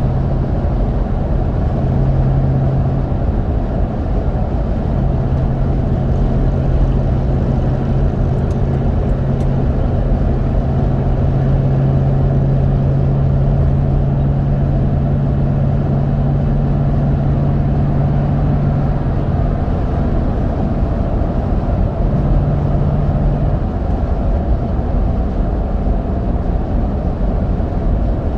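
Road noise inside a Toyota Sequoia rolling at highway speed on Mickey Thompson Baja Boss A/T all-terrain tires: a steady rumble with a low hum that drops away about five seconds before the end.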